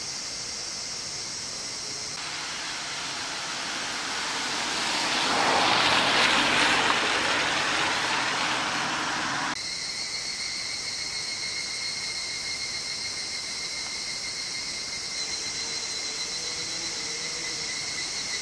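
Cicadas buzzing steadily. A broad rushing noise swells over several seconds, is loudest in the middle, and cuts off suddenly about halfway through.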